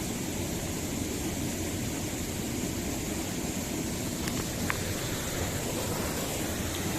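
Steady roar of fast-flowing water, even and unbroken, with a couple of faint ticks about four and a half seconds in.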